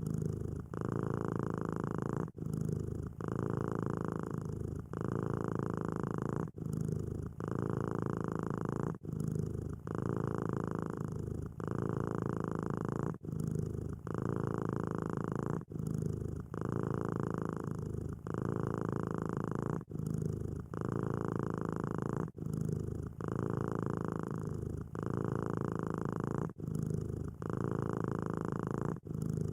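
Domestic cat purring steadily and close up. The purr changes tone with each breath in and out, with a brief break at each turn of the breath, about every second or so.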